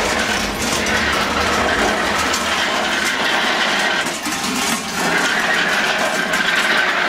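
Many large bells worn by Krampus runners clanging together in a dense, continuous metallic din, with a faint ringing tone held above it.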